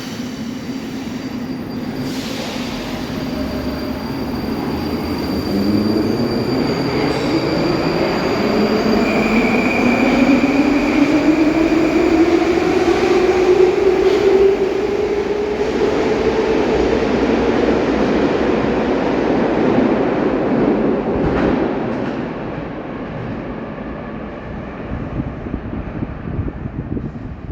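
'Baltiets' metro train running through a tunnel, heard from inside the car: a steady rumble of wheels and running gear with a traction-motor whine that climbs in pitch as the train speeds up. The whine fades and the noise eases about three quarters of the way in.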